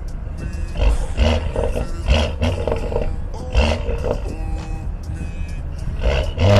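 Exhaust of a BMW 440i's turbocharged B58 inline-six, fitted with a catless downpipe, droning loudly while driving and swelling several times, with music playing over it.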